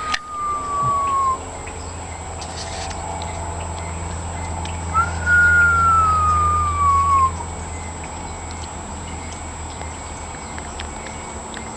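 A bird's long whistle sliding slowly down in pitch, like the sound of a falling bomb. One whistle fades out about a second in. A second starts about five seconds in with a quick upturn, then glides down for about two seconds, over a steady low hum.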